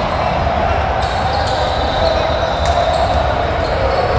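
A basketball being dribbled on a hardwood gym floor, against a steady din of voices from the crowd and the other courts in a large hall.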